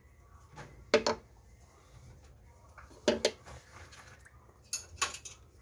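Wooden chopsticks clicking and knocking against a frying pan of soy-braised eggs and pork: a few sharp taps, about a second in, near three seconds, and twice close together near five seconds.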